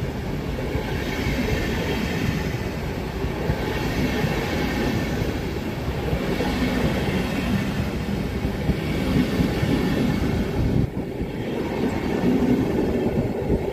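Passenger coaches of a departing train rolling past at close range, with steady wheel-on-rail noise as they pick up speed.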